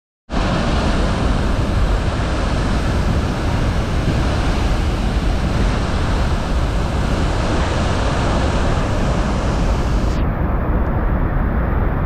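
Athirappilly Falls, a large waterfall in heavy flow, making a loud, steady rush of falling water.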